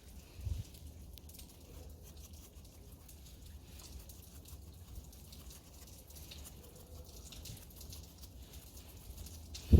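Faint, irregular light patter over a low rumble, with a short thump about half a second in and a louder thump at the very end.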